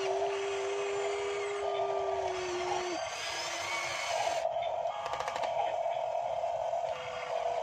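Electric motors of a radio-controlled model excavator whining steadily as it works its arm and bucket down into muddy water. A second, lower whine holds for about the first three seconds, then stops.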